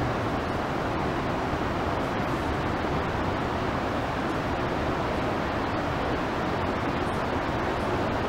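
One of the Iguaçu Falls' cascades: a steady, dense rush of falling water.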